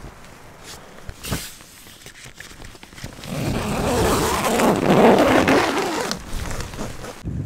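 A nylon tent door being unzipped and the fabric flap pushed aside, a noisy rasp and rustle that swells to its loudest about two-thirds of the way through. A single sharp click comes about a second in.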